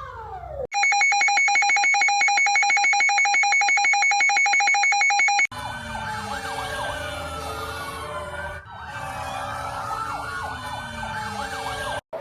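A siren sweep falls away, then a loud electronic alarm tone pulses rapidly for about five seconds. It cuts to several sirens wailing up and down over one another, with a brief dropout partway through.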